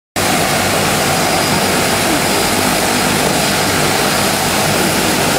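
Small aircraft's engines running steadily in flight: a loud, even drone with a low hum through it.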